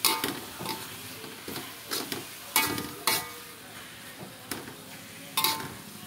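Metal spatula clanking and scraping against an aluminium wok as pounded cassava leaves are stirred: about eight irregular clacks with a brief metallic ring, the loudest near the middle and near the end. A faint sizzle of the leaves cooking lies underneath.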